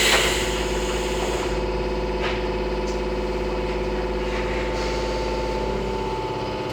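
Izu-Hakone Railway 3000-series electric train: a thump as the doors close, with a hiss dying away over the first second or so, then a steady hum from the train's equipment.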